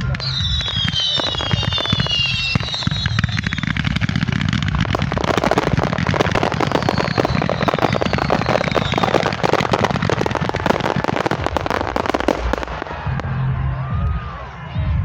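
Fireworks going off: several whistles falling in pitch near the start, then a long dense run of crackling pops over a continuous rumble of bangs.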